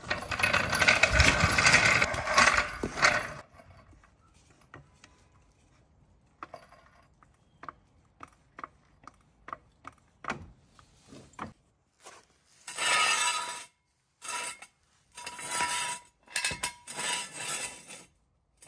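A steel floor jack is rolled across a concrete floor, then pumped up under the car with a run of short clicks about twice a second. Several longer scraping bursts follow in the last third.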